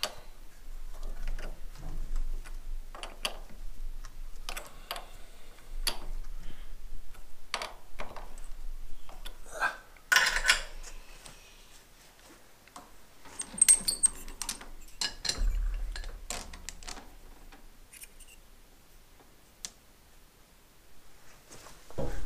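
Irregular metal-on-metal clicks and knocks from handling and clamping a tool holder in a metal lathe's quick-change toolpost. The loudest clank, with a brief ring, comes about ten seconds in.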